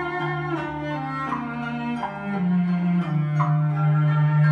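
Cello-led bowed string music played from a vinyl record on a turntable, with long held low notes that step up and then back down, growing louder near the end.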